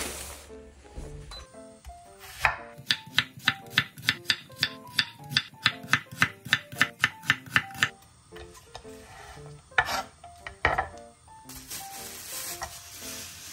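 Chef's knife slicing an onion on a wooden cutting board, an even run of about four strokes a second for several seconds. Near the end a plastic bag crinkles as meat is unwrapped, with soft background music throughout.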